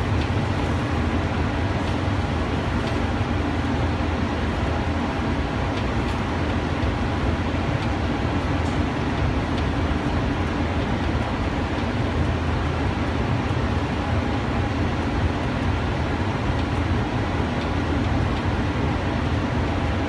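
Ride noise of a cable-drawn Doppelmayr Cable Liner people-mover car cruising along its elevated guideway, heard from inside the car: a steady rumble with a constant low hum that holds even throughout.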